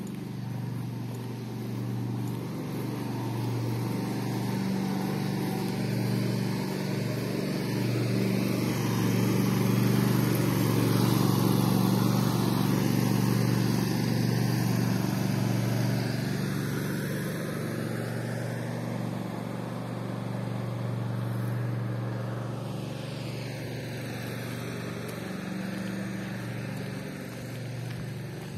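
Engine noise of something passing: a steady low hum that swells to its loudest about ten seconds in, then slowly fades.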